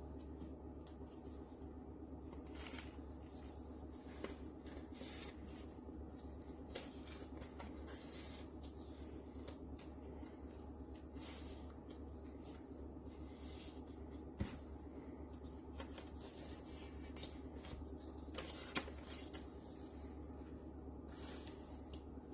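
Paper rustling and sliding as the pages, flaps and tuck-in cards of a handmade paper journal are handled and flipped, with a few sharp taps over a steady low hum.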